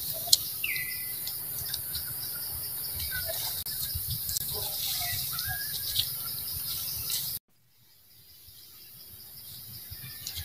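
Outdoor ambience: a steady high-pitched insect buzz with a few short chirps and light clicks. The sound drops out suddenly about seven seconds in and slowly fades back up.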